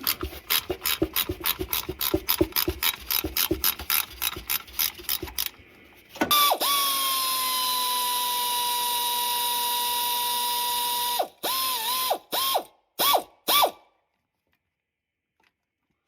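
Hand ratchet clicking rapidly as a fuel pump mounting bolt is backed out of the engine block, about six clicks a second. This is followed by a steady, loud whine for about five seconds and then three or four short whines that dip in pitch.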